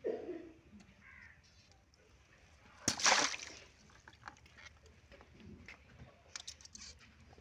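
A water balloon bursting in a tub of water: one sharp pop about three seconds in, followed by a short hiss of spraying, splashing water. Sloshing water at the start and a few small wet clicks near the end.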